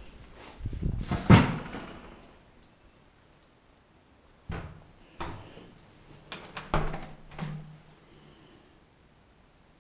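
A door being handled: a run of knocks and clatters, loudest about a second in, then a few more clicks and knocks between about four and a half and seven and a half seconds.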